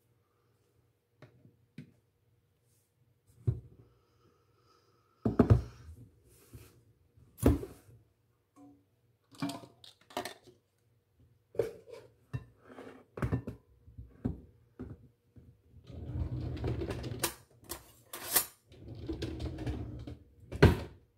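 Irregular knocks and clatters of measuring cups and kitchen utensils being handled on the countertop, then a measuring cup scooping and scraping flour inside a metal canister, with a sharp knock near the end.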